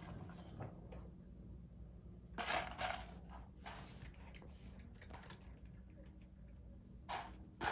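A cat pawing at a plastic food puzzle feeder: a few short clattering knocks of the feeder's parts and kibble, in irregular bursts.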